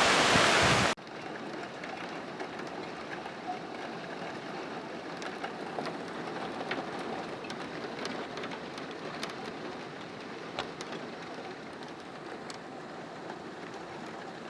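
Steady rain from a heavy thunderstorm: a louder rush of downpour for about the first second, then a quieter, even patter of rain with scattered sharp drip ticks.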